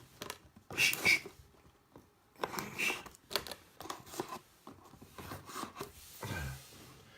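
Plastic shrink wrap on sealed trading-card boxes being torn and crinkled off, in a series of short, irregular rustles.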